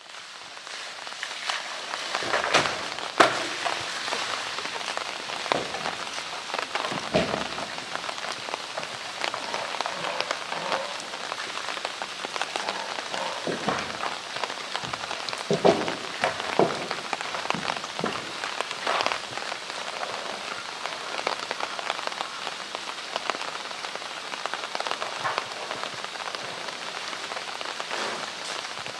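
A steady hiss of falling water, like rain on a surface, throughout. Over it come scattered knocks and thuds, loudest about three seconds in and again around sixteen seconds, as a polar bear paws and mouths a hollow blue plastic drum.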